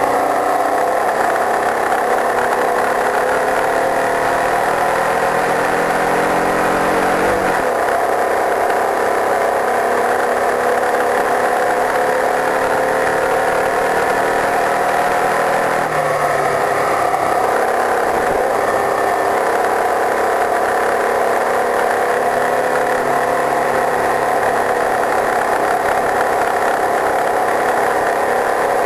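Single-seater race car's engine running under load on track, recorded from the car itself, with steady wind and road noise. The engine pitch shifts sharply twice, about seven and sixteen seconds in, as with gear changes.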